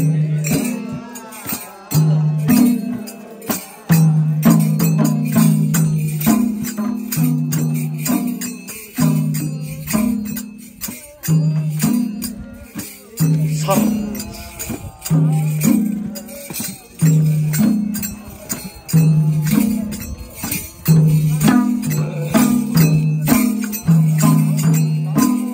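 Madal hand drums played live in a steady, repeating folk-dance rhythm, the low booming strokes alternating between two pitches, with crisp high strikes landing on the beats.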